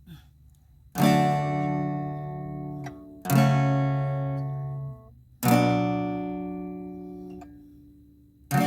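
Acoustic guitar strummed in slow single chords, each struck once and left to ring out for about two seconds; three chords ring out and a fourth is struck near the end.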